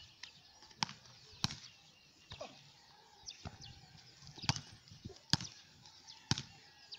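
A football being kicked and headed back and forth on grass: a string of sharp thuds at irregular intervals, about five clear strikes.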